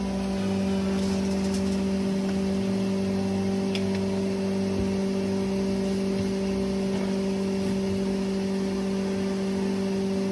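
Steady machine hum with a low tone and a higher one above it, holding level throughout.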